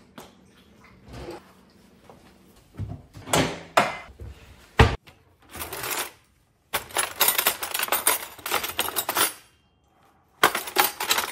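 A kitchen drawer opened with a few knocks, then metal cutlery rattling and clinking as a hand rummages through it and lifts out a knife. There is a brief pause before a last run of clinking near the end.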